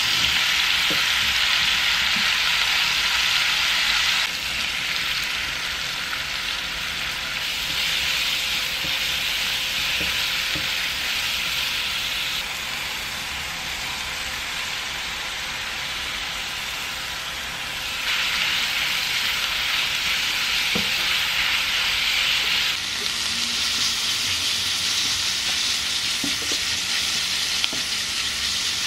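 Thin-sliced beef brisket and diced vegetables sizzling in hot oil in a pot, stirred and turned with a utensil that gives a few light taps. The sizzle jumps louder and quieter in abrupt steps several times.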